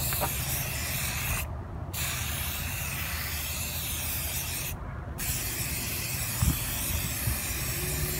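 Aerosol spray paint can hissing as paint is sprayed onto tree bark, in three long bursts with two short breaks, about one and a half and five seconds in.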